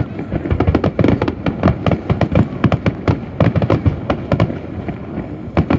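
Fireworks going off in rapid succession: a dense volley of sharp bangs and crackling reports, many a second, across the harbour from a display fired off barges.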